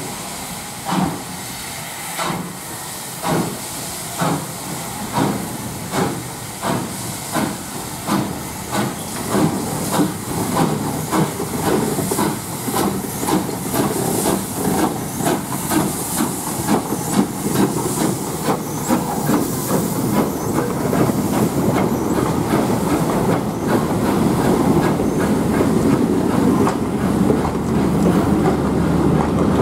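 Caledonian Railway 812 Class 0-6-0 steam locomotive No. 828 working a train away, its chuffing exhaust beats quickening from about one a second to two or three a second as it gathers speed, over a steady hiss of steam. In the last several seconds the beats give way to the steady rumble and wheel clicks of the coaches rolling past.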